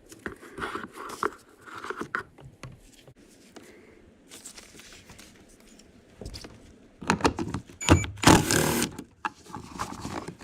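Hand-tool and plastic-trim handling on a car door: scattered clicks and scraping as a plastic cover is pried out of the door handle pocket and a socket is worked on the screw behind it, with a denser stretch of rattling and scraping about seven seconds in.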